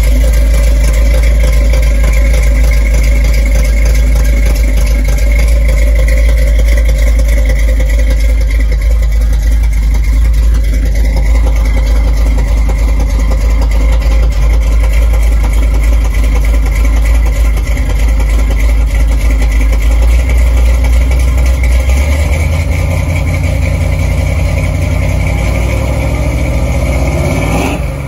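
Freshly rebuilt 302 Windsor V8 in a 1969 Ford F100, with a big cam and long-tube headers, idling loud and steady through its exhaust while warming up after the rebuild. The exhaust note changes about twenty seconds in and rises briefly near the end.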